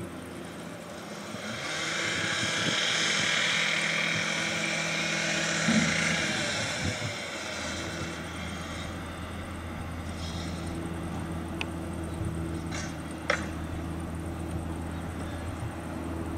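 Diesel-hydraulic Vossloh G1000 shunting locomotive running steadily on the move, its engine a low, even drone. A hiss swells in over the first couple of seconds and fades by about eight seconds in, and a few sharp clicks come later.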